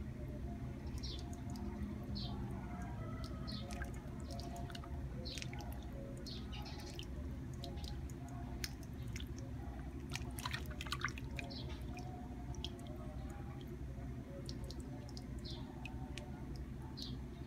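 Hands rinsing and cleaning eels in a plastic basin of water: small splashes and drips scattered throughout, with a brief flurry of splashing about ten seconds in, over a steady low background rumble.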